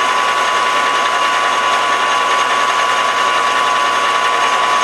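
Metal lathe turning a shaft while a twist drill in the tailstock bores a deep hole into it, making a steady machining hum with a constant high whine.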